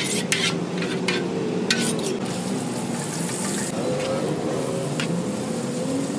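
Sliced onions frying in hot oil in a giant metal pot: a steady sizzle, with a ladle knocking and scraping against the pot several times and a louder hiss about three seconds in.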